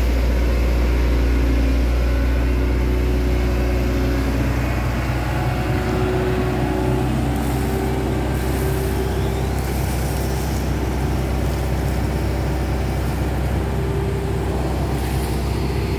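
Hitachi Zaxis 110 excavator's diesel engine running steadily as the boom and arm swing the bucket down to scoop water, with a steady tone above the engine drone that shifts a little in pitch as the arm moves.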